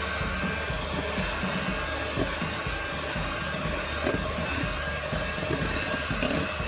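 Handheld electric mixer running at a steady speed, its wire beaters creaming butter and brown sugar in a stainless steel bowl. The beaters knock against the bowl a few times.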